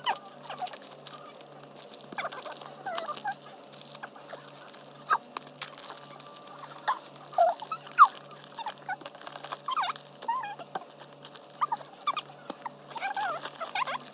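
Slime being squished and kneaded by hand, with irregular small squelches, wet pops and squeaks, over a faint steady hum.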